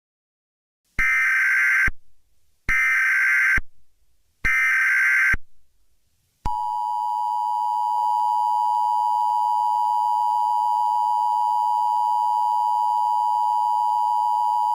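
NOAA Weather Radio emergency alert signal: three short buzzy bursts of the SAME digital header, then the steady 1050 Hz warning alarm tone held for about eight seconds before cutting off. The sequence announces that a warning broadcast follows.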